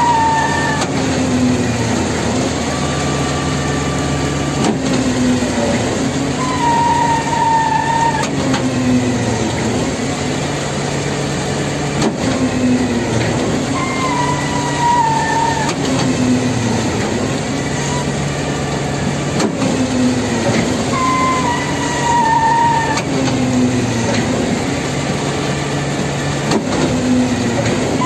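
Truck-mounted concrete pump running while a mixer truck's chute feeds concrete into its hopper. Its diesel engine runs steadily under a rhythmic pump cycle of about one stroke every three seconds, and a high, falling whine comes back several times.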